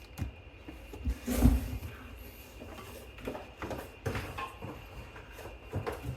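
Unboxing handling noise: packaging and items being moved and set down on a table, with a low thump about one and a half seconds in and scattered light knocks and rustles after it.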